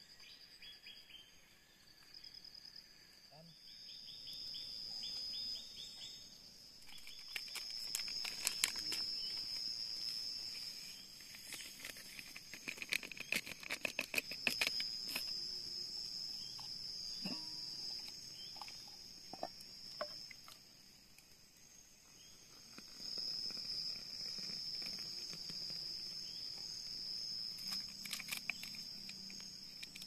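Forest insects keep up a steady high-pitched buzzing chorus that swells and fades several times. Scattered sharp clicks and knocks sound over it, bunched in a few clusters.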